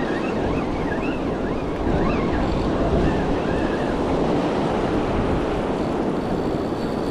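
Ocean surf washing in and out over a sandy beach, a steady rushing wash, with wind buffeting the microphone.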